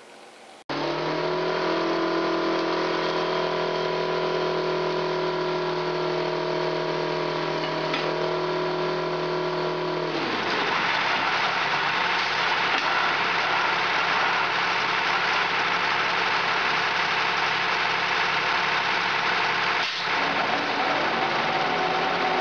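A heavy diesel engine running steadily. About ten seconds in its pitch drops and it turns into a rougher, noisier running sound.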